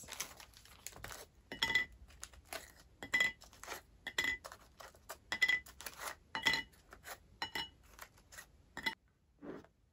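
Round crackers set down one at a time on a plate, each landing with a light clink that rings briefly; a series of clinks at roughly one a second, stopping about a second before the end.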